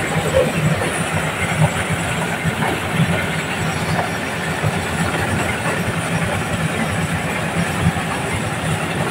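Diesel-powered corn sheller running under load as whole cobs are fed in: a steady engine hum under a dense rattle of cobs and kernels being threshed in the drum and pouring out of the chute.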